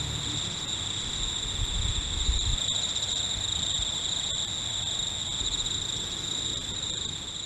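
Insects trilling steadily at one high pitch over a low, uneven rumble.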